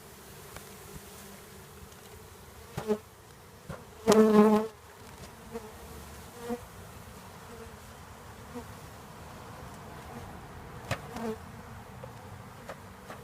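Honeybees from a freshly dumped package buzzing steadily around the hive, with single bees flying close past the microphone in short, louder buzzes; the loudest passes about four seconds in.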